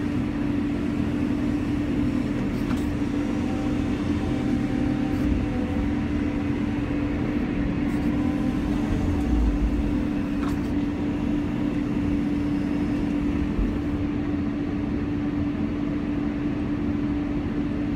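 Cat 320 hydraulic excavator running steadily as it works its boom and bucket, heard from inside the operator's cab: an even engine drone with a strong steady hum and a few faint clicks.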